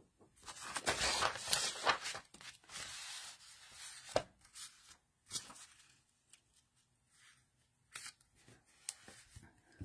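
Sheets of cardstock and paper rustling and sliding on a craft mat as they are shuffled and slipped under one another, busiest in the first four seconds, then a few light taps and quieter handling.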